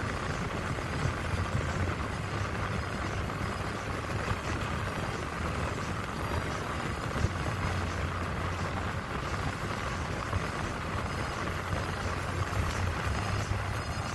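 Steady road noise inside a moving car's cabin: a low engine and tyre rumble.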